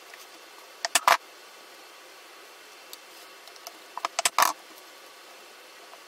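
Two short bursts of clicking and clatter, about a second in and again about four seconds in, from a Phillips screwdriver working screws out of a shop vac's plastic motor housing.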